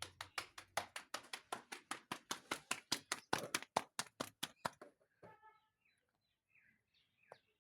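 Hands slapping and patting a ball of roti dough flat between the palms, a quick even rhythm of about six slaps a second that stops a little under five seconds in. A few faint bird chirps follow.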